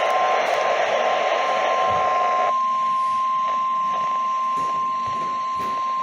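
Weather-radio emergency alert tone: one steady, unbroken high tone over radio hiss. It is the attention signal that comes just before a severe thunderstorm watch is read. A louder layer of static under the tone cuts off about two and a half seconds in.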